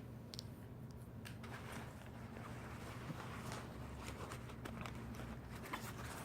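Faint rustling and light clicks of small toiletry bottles and baby items being handled and set down, over a low steady hum.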